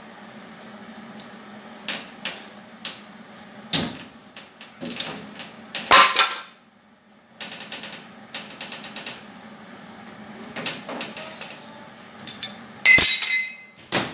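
Scattered knocks and clanks from a Bombardier snow bus's sheet-metal side door as it is forced back into shape by hand against a wedged 2x4. Near the end the door is swung shut with a metallic bang and rattle to test its fit.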